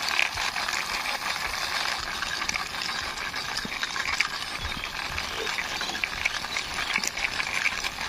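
Plastic wheels of a toy bulldozer being hand-pushed over a rough concrete wall top: a steady gritty rolling and scraping with many small clicks.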